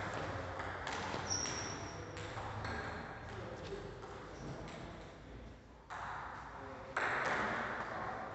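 Table tennis rally: a celluloid-type ping-pong ball clicking sharply off the rubber paddles and the table, back and forth in an irregular rhythm. A brief high squeak comes about a second and a half in, and the sound grows louder and noisier near the end.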